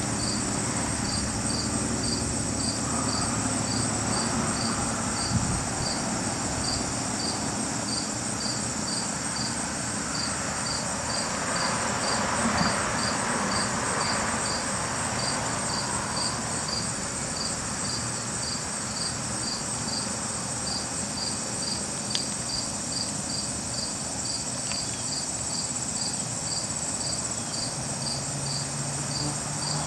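Insects chirping outdoors: a regular high chirp, about two to three a second, over a steady higher trill.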